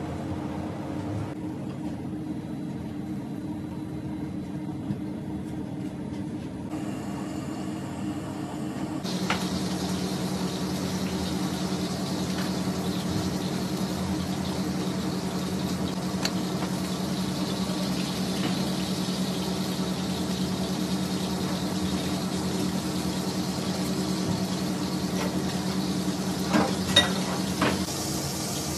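A steady low mechanical hum that changes in character at the video's cuts, with a few light knocks near the end.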